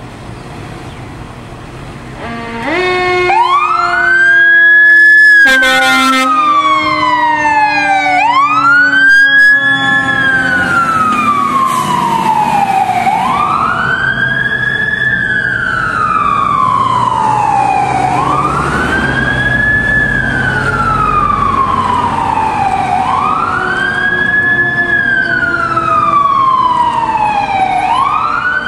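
Fire truck siren winding up about two and a half seconds in, then wailing up and down over and over, each cycle a quick rise and a slower fall lasting about five seconds.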